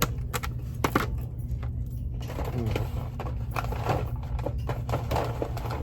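Goods being picked up and handled: scattered light clicks and knocks over a steady low hum.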